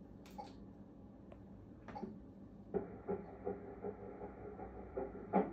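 Faint regular pulsing, about two and a half beats a second, that starts a little under three seconds in, after a few light handling clicks: an ultrasound machine playing back a fetal heartbeat during an early pregnancy scan.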